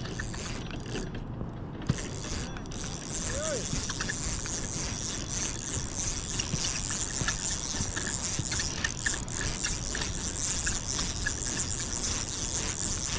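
Fishing reel being cranked, its gears giving a steady whirring, clicking ratchet sound as line is wound in, from about three seconds in.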